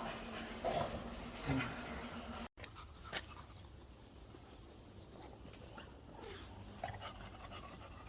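A dog making two short sounds in the first two seconds. The sound then drops out for an instant, followed by a single click and low steady background.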